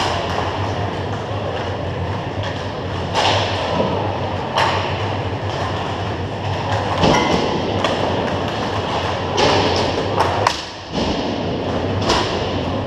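Hockey play: a steady rumble of skating with a low hum underneath, broken by about six sharp clacks of sticks hitting the puck.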